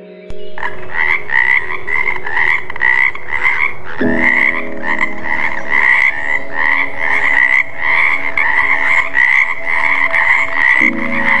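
Frog croaking in a steady run of pulsed calls, about two a second, starting about half a second in.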